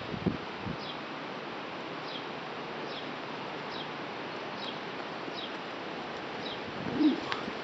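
Steady wind with leaves rustling, while a bird repeats a short, high, falling chirp about once a second. A brief louder low sound comes about seven seconds in.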